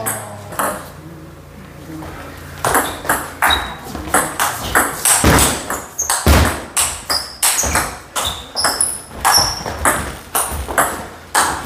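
Table tennis ball clicking off rubber paddles and the table in a fast rally, about three sharp clicks a second, after a brief lull in the first two seconds. Short high squeaks of shoes on the wooden floor come between the strokes.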